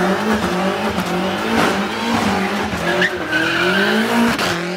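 BMW M5 doing a burnout: the engine is held high in the revs, its pitch wavering up and down and climbing near the end, while the spinning rear tyres squeal and hiss on the tarmac.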